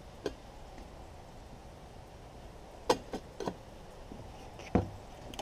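A few faint, sharp clicks and knocks of cookware and utensils being handled on a wooden table, over a quiet steady background.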